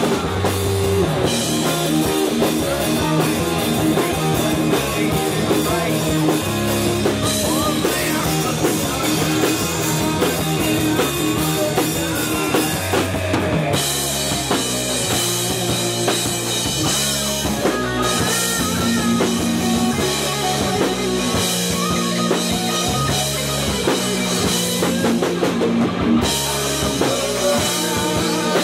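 Heavy metal band playing: distorted electric guitars over a drum kit with bass drum and cymbals. The riff changes to a new section about fourteen seconds in.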